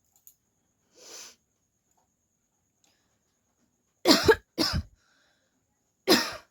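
A woman coughing: a faint breathy sound about a second in, then two loud coughs close together about four seconds in, and one more loud cough near the end.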